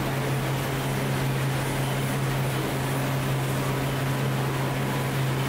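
Steady drone of forge-shop machinery: a constant low hum under an even roar, with no hammer blows.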